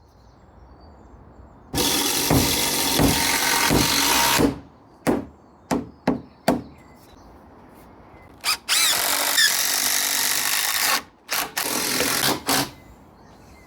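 Power drill running in bursts on timber: two runs of a couple of seconds each and several short trigger blips in between.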